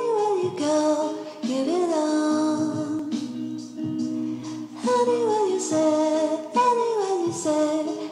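Background music: a song with a singing voice, held notes sliding down at the ends of its phrases.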